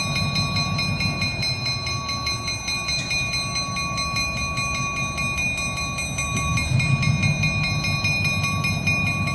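EMD RS1325 diesel road-switcher running with a steady low engine rumble as it moves slowly, hauling other locomotives, with a steady high tone over the rumble.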